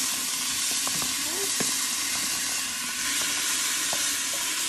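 Seasoned pork pieces sizzling as they land in hot coconut oil in a pressure cooker, a steady frying hiss. A few light knocks of a wooden spoon against the metal bowl and pot as the meat is scraped in.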